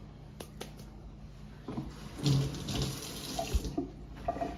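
Water running from a kitchen tap for about a second and a half, starting about two seconds in, after a few light clicks.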